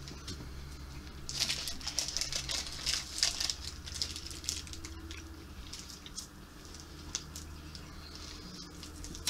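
Crinkling and rustling of a Prince Polo chocolate wafer bar's wrapper being unwrapped by hand. The crackling is densest from a little over a second in until about four and a half seconds, then comes in scattered bits over a faint low hum.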